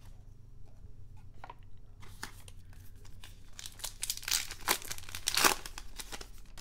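A trading card pack's crimped wrapper being torn open by hand and crinkled: a dense run of rasping crackles starting about two seconds in, loudest between about four and five and a half seconds. Before it come a few light clicks of cards being handled.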